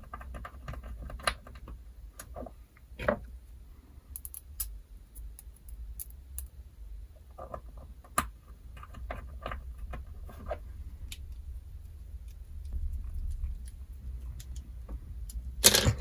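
Scattered small metallic clicks and light taps of a brass padlock core's parts and a small screwdriver being handled as tiny set screws are fitted to secure the core's linkage.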